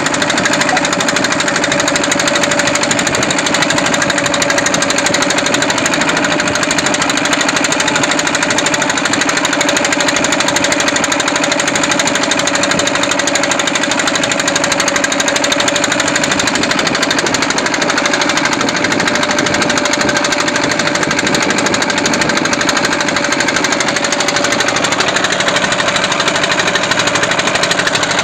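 Boat engine running steadily with a rapid, even knocking beat.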